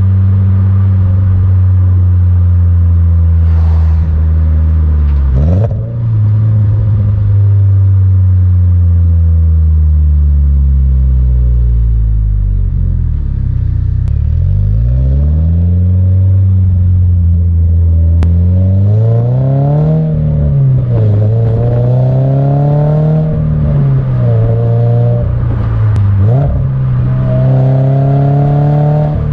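Exhaust note of a 2022 Subaru BRZ's flat-four through its HKS Spec L exhaust, heard right at the tailpipe while driving. The engine holds a steady pitch for the first few seconds, sags and falls away in the middle, then climbs and drops repeatedly in the second half as the car accelerates and comes off the throttle.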